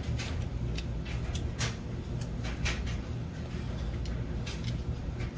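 Potato peeler scraping bad spots off small yellow potatoes in short, irregular strokes, over a steady low hum.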